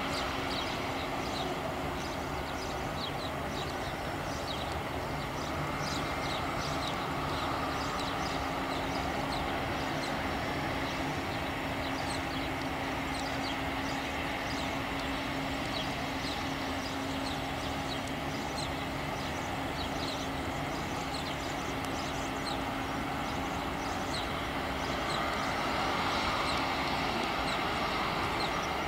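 Airbus A320 jet engines running at taxi power: a steady whine over a low hum, swelling about 25 seconds in as the airliner rolls closer. Many short high bird chirps sound over it throughout.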